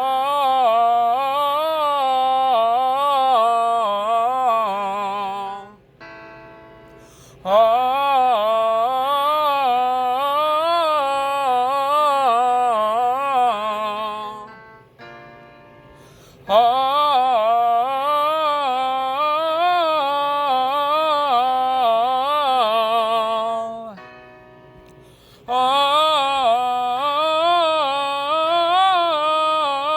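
A voice singing a three-tone vocal exercise on an open 'ah' vowel: four phrases of about six seconds, each moving up and down through small pitch turns. Short pauses between the phrases hold a faint, steady sustained tone.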